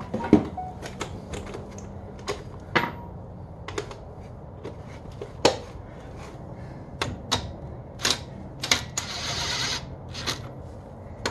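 Irregular metal clicks and knocks as parts of an AAM 11.5-inch rear axle differential are handled, the loudest near the start, with a brief rasping for about a second near the end.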